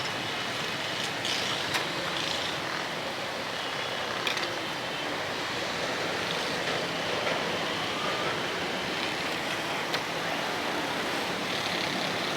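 Steady street noise with traffic running by, broken by a few sharp clicks, about three across the stretch.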